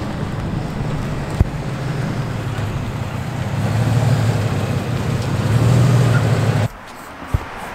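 Lowered black Chevy pickup's engine running as the truck drives up and pulls in to the curb, a steady low drone that grows louder about four seconds in and stops abruptly near the end, followed by a single click.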